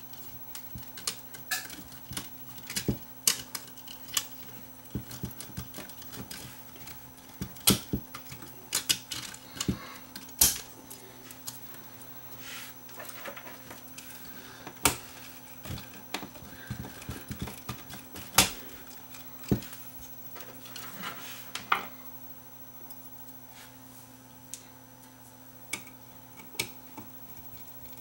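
Irregular sharp clicks, taps and knocks of small plastic and metal parts being handled as a Technics RS-M275 cassette deck is taken apart, over a steady low hum. The clicks thin out after about twenty seconds.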